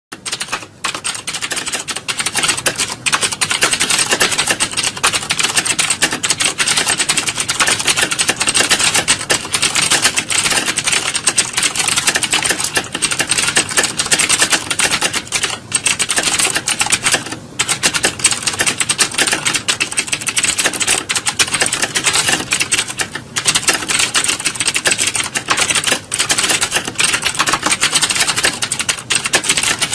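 Fast, continuous typing: a dense stream of key clicks with a few brief pauses.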